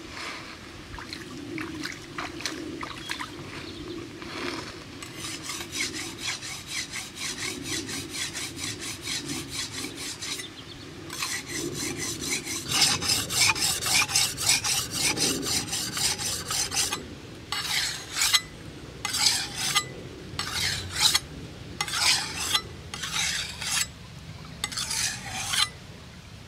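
Steel cleaver blade sharpened on a whetstone: rapid back-and-forth scraping strokes of steel on stone, several a second, loudest around the middle. In the last third they give way to slower, separate strokes about one a second.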